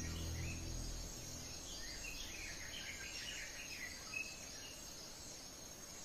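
Forest ambience: a steady high insect drone with scattered bird chirps. The tail of background music fades out in the first second or so.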